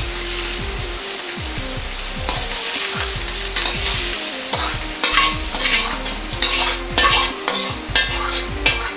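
Diced vegetables and ham sizzling in oil in a wok while a metal ladle stirs them. From about halfway on, the ladle scrapes and knocks against the wok's metal surface, one or two strokes a second.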